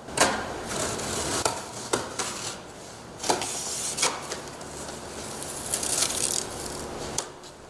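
A cardboard box holding a storm door being opened and handled: scraping and rustling, with several sharp knocks in the first four seconds and a longer scratchy stretch near the end.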